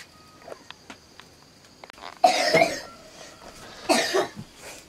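A man coughing twice, two short harsh coughs about a second and a half apart.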